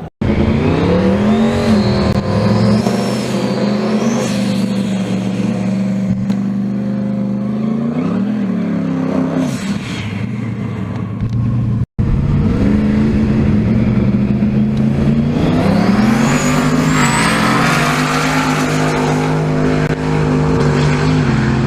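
No-prep drag race cars' engines at full throttle, launching and running down the strip, each rising in pitch and then holding high and steady. The sound cuts off abruptly about halfway through and a second run begins.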